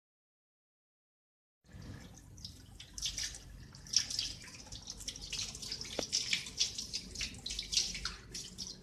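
Silent for about the first second and a half, then water splashing and dripping in irregular spatters.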